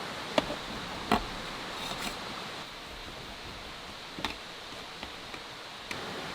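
A few light, sharp clicks or knocks, about four spread out, over a steady hiss of background ambience.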